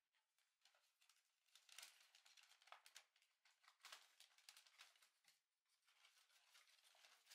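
Faint, intermittent rustling and crinkling of a paper takeout bag being handled.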